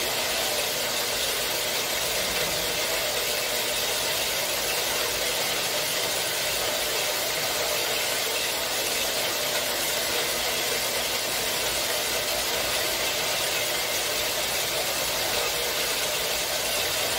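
4x6 horizontal metal-cutting bandsaw running steadily, its blade cutting through a stack of 11-gauge steel square tubing.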